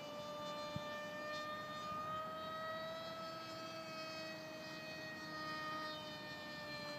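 Distant whine of a small RC plane's 2200kv brushless electric motor and 6x5 propeller flying overhead. It is a steady droning tone whose pitch rises slightly and then eases back.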